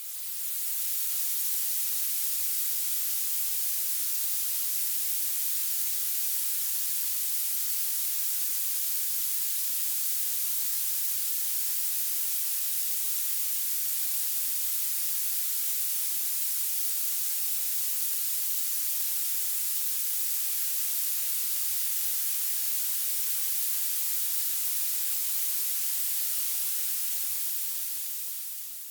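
Violet noise: a steady, thin, bright hiss that is strongest in the highest pitches. It fades up at the start and fades out at the end.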